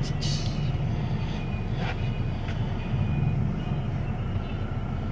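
Low, steady rumble of idling and creeping engines in a traffic jam, heard from inside a car, with a few brief sharp sounds near the start and about two seconds in.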